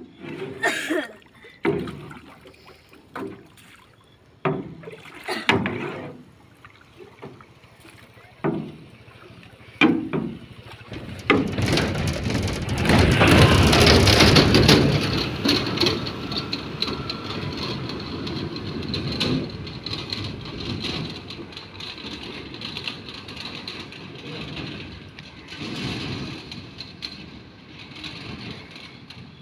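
Scattered knocks and bumps on a wooden boat as collapsible mesh shrimp traps are handled. About eleven seconds in comes a longer, louder stretch of water splashing and sloshing as a trap is dipped and moved in the river. After that a steady high insect drone, like crickets, runs on under the water noise.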